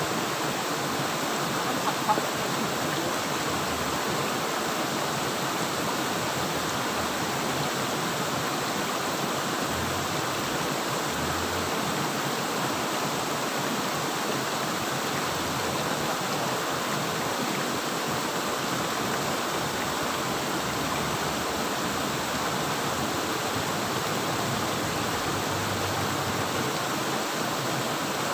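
Water pouring over a low weir at a culvert outlet into a shallow stream: a steady, even rush of falling water.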